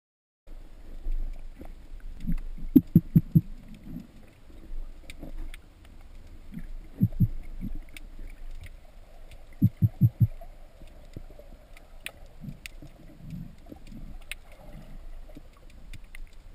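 Underwater sound picked up by a speargun-mounted camera, starting about half a second in: a low murky background with muffled thumps in quick runs of three or four, about three seconds in and again about ten seconds in, and scattered sharp clicks.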